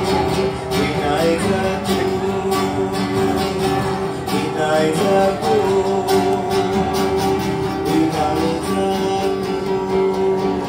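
Song with strummed acoustic guitar and a singing voice, accompanying a dance.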